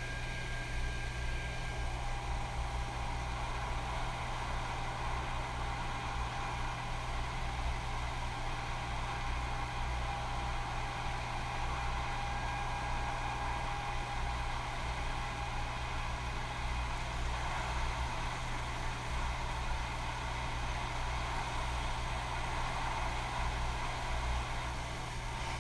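Hot air rework station blowing at low airflow, a steady hiss with a low hum and a faint whine, while heating the HDMI retimer chip to desolder it from the Xbox One S board.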